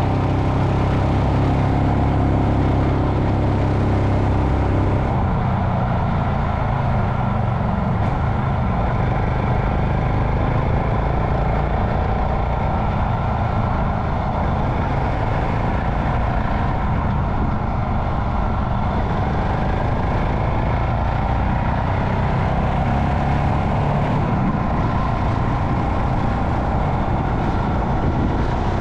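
Royal Enfield Himalayan's single-cylinder engine running steadily under way, heard from on the bike. The engine note changes about five seconds in.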